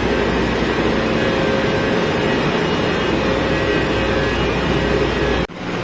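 Steady loud rumble and hiss of a train at a station, with a low hum underneath; it starts and stops abruptly.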